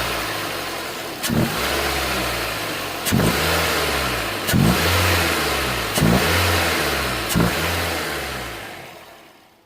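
Nissan HR15 1.5-litre four-cylinder engine revved in about five throttle blips, each starting with a sharp click and rising in pitch before settling back, then fading out near the end.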